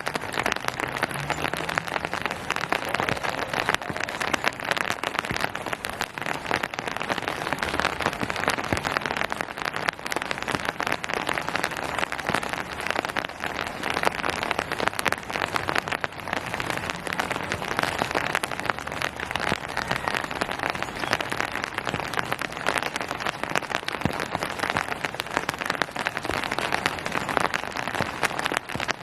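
Steady rain falling on hard surfaces, a dense patter of many drops. It holds even throughout.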